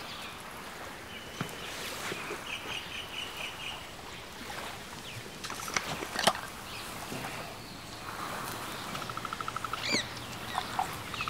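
Outdoor ambience with bird calls over a steady hiss, including a short rapid high trill about two and a half seconds in, and a few light clicks. Near the end comes a rapid pulsing gurgle as tea is poured from a thermos flask into a cup.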